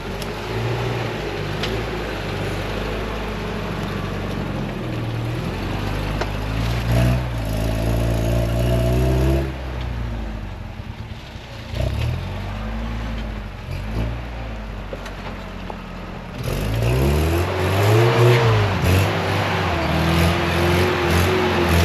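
Off-road 4x4 engine running and being revved, its pitch climbing and falling in surges, with a strong rev about seven seconds in and louder revving again through the last few seconds.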